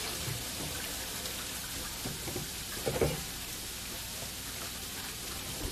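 Steady sizzle of crumbled extra-firm tofu frying in a hot, smoking pan of non-dairy butter, with a few soft knocks around the middle.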